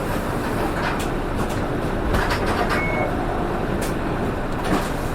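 Interior noise of a Nishitetsu PKG-RA274MAN route bus, a steady running drone with many short knocks and rattles; this bus is known for an unusual noise. A brief high beep sounds about three seconds in.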